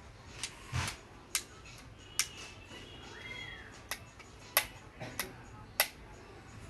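Irregular sharp clicks and taps, about eight of them, from a rechargeable LED torch being handled. A faint short call that rises and falls comes about three seconds in.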